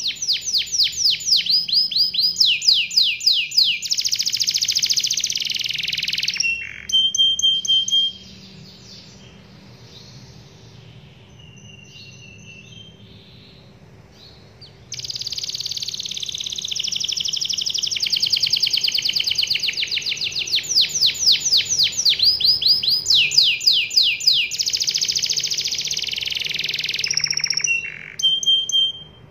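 Domestic canary singing its long rolling song: fast trills of rapidly repeated sweeping notes, one roll after another. About eight seconds in it drops to a few soft notes, then takes up the full song again about halfway through.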